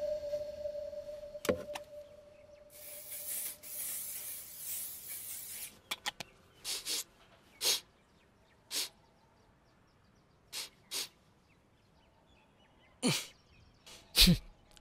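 Aerosol body spray hissing: one long spray of about three seconds, then several short puffs, followed near the end by two louder sniffs.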